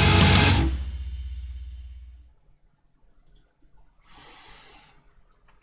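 A Japanese rock band's song ends on a full-band final hit with drums and cymbals about half a second in, then rings out and fades over about two seconds, a low bass note dying last. After it comes near quiet with a few faint clicks and a soft rustle.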